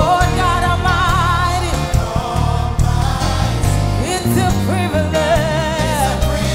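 Live gospel worship music: a singer holding wavering notes with vibrato over a band with a sustained bass.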